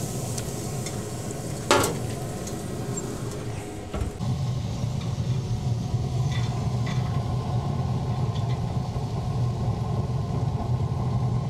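Steady low hum of a Weber SmokeFire pellet grill running, with a single sharp click a little under two seconds in.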